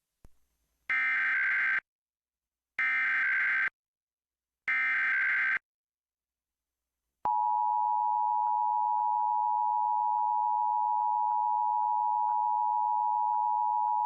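Emergency Alert System test header: three one-second bursts of screechy SAME digital data tones, evenly spaced, then from about seven seconds in the long, steady two-tone EAS attention signal.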